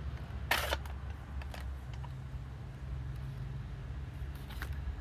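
Plastic clicks and a short rattle from a handheld Walt Disney MovieViewer toy film viewer as it is handled and its film cartridge is taken out. The loudest click comes about half a second in, with fainter ones later, over a low steady rumble.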